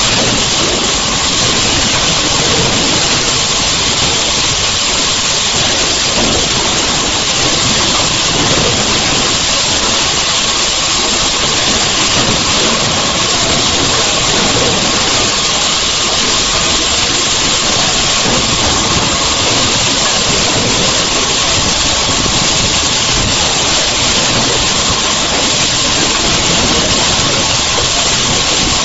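Loud, steady hiss with no distinct events or rhythm, unchanged even where the picture cuts between scenes, with a faint steady tone underneath.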